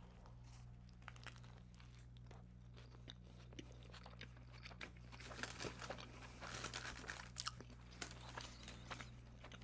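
Close-miked chewing of a sauced chicken snack wrap: soft crunches and wet mouth clicks, quiet at first and busier and louder from about halfway through. A faint steady electrical hum lies underneath.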